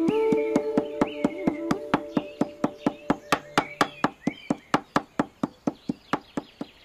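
Rapid, even knife chopping on a board, about five strikes a second, over background music that fades away by about halfway.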